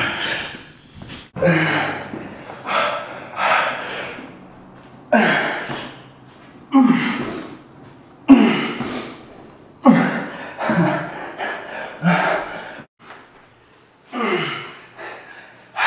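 A man's loud gasping breaths and grunts of exertion, one burst about every second in time with the reps of push-ups with knee strikes, with a short break near the end.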